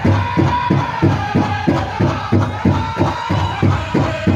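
Powwow drum group playing a chicken-dance song: a big drum struck in a fast, even beat, about three to four strokes a second, with singers holding high notes over it.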